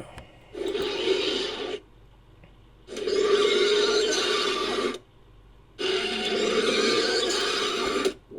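Invented creature sound effect for a fictional humanoid centipede: three raspy, hissing calls, each one to two seconds long, with short silent gaps between them.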